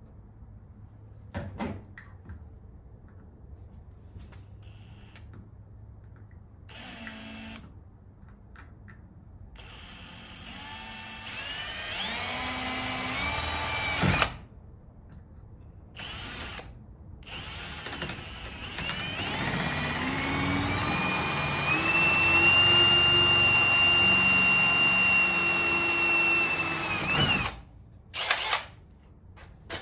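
Electric drill boring into car body sheet metal: a short run that speeds up and stops, then a longer run that rises to a steady high whine for about eight seconds before cutting off, followed by a couple of quick bursts.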